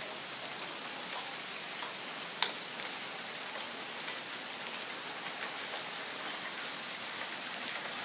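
Steady hiss and patter of hail and rain falling on paving, lawns and trees during a hailstorm, with one sharp click about two and a half seconds in.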